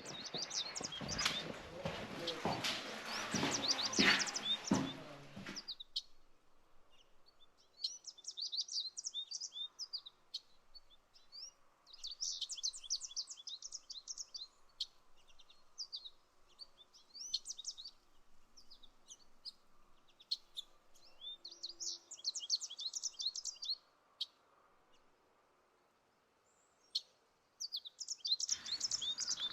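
Small songbird singing outdoors, in repeated bursts of quick high chirps and trills with short pauses between them. Before the birdsong starts, about six seconds of rustling noise with knocks.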